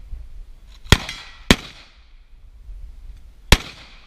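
Three carbine shots fired one at a time: two about half a second apart, then a third two seconds later. Each shot is a sharp crack with a short echo.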